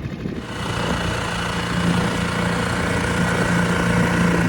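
Boat engine running steadily at an even pitch, starting about half a second in.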